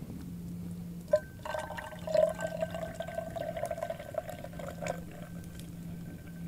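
A drink being poured into a cup for about three and a half seconds, after a single sharp click about a second in.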